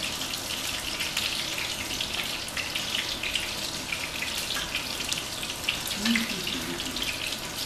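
Coated halibut pieces frying in oil in a pan: a steady sizzle with crackling pops.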